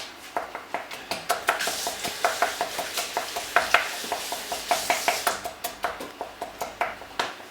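A spoon stirring a chocolate mixture in a bowl, clinking against the bowl about three or four times a second, the bowl ringing briefly after many strokes.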